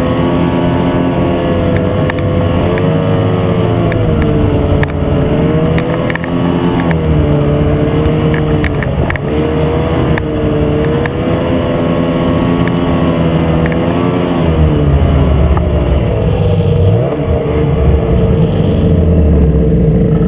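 Snowmobile engine running hard, its pitch rising and falling again and again as the throttle is worked, settling to a steadier note near the end.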